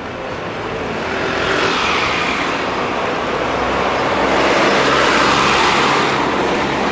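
A large truck's engine and tyres passing close by on a road, growing louder to a peak about five seconds in and easing off near the end, with a low engine hum under the tyre noise.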